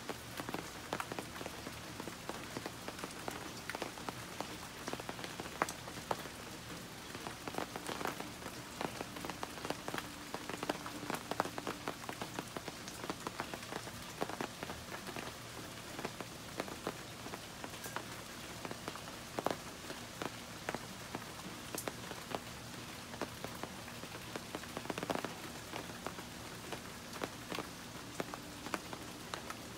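Steady rain falling, an even hiss with many separate drops tapping at irregular moments throughout.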